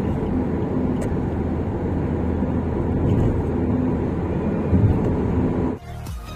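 Steady low rumble of a car driving on the road, heard from inside the cabin, with a single knock about five seconds in. Near the end it cuts off suddenly and music begins.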